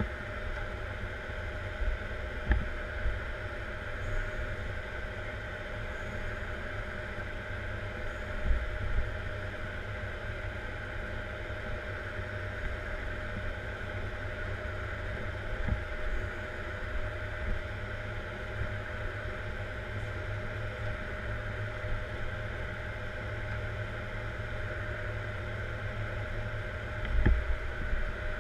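Caterpillar 140M Series 2 motor grader's diesel engine running steadily, heard from inside the cab, with a few brief knocks and thumps from the machine as it works.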